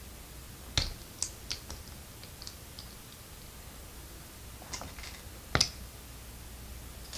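LEGO plastic pieces being handled and pressed together, making sharp clicks. There is a quick run of clicks about a second in, and a louder double click past the middle.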